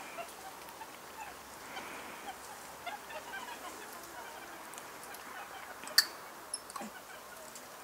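Faint, scattered short animal calls, with one sharp click about six seconds in.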